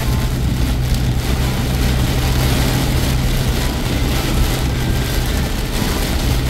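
Car engine and road noise heard from inside the cabin, a steady low hum under a constant rush.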